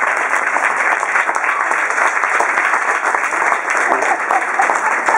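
Audience applauding steadily in a small theatre, with scattered voices among the clapping.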